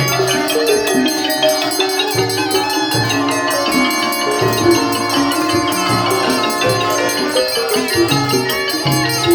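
Instrumental music: melodic xylophone-like mallet notes over a quick, steady pulse of shaken percussion.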